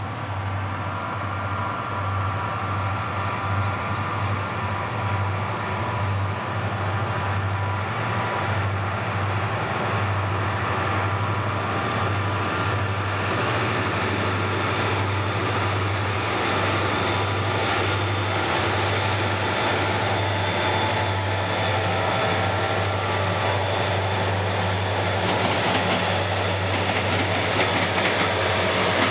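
Santa Fe diesel freight locomotives (two SD40-2s and an FP45) drawing closer and passing, their engines running with a steady low rumble, growing slightly louder, with wheel clatter building near the end.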